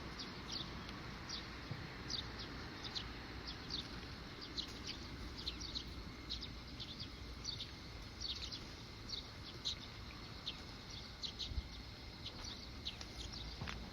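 Small birds chirping: a steady string of short, high, downward-sweeping notes, one or two a second, over a low steady background rumble of wind or distant traffic.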